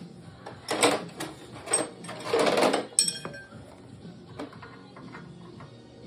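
Hand tools clattering and scraping, with a sharp metallic clink that rings briefly about three seconds in. After it, light clicks and taps of a wrench being fitted to a snowmobile ski's shock bolt.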